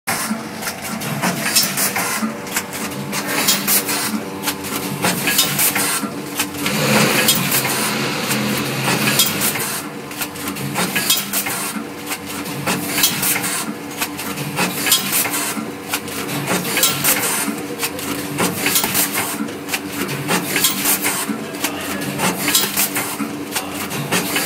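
Rotary pouch packing machine running: a continuous mechanical clatter of clicks and rattles repeating in a regular cycle as the carousel indexes and its grippers open and close.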